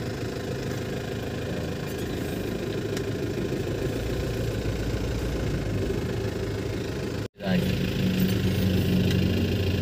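Isuzu Crosswind's engine idling steadily, heard from inside the cabin. The sound cuts out for an instant about seven seconds in and comes back a little louder.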